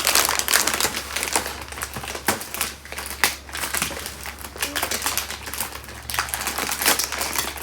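Plastic cookie-package wrapper crinkling and crackling as it is pulled and worked open by hand: a fast, uneven run of sharp crackles.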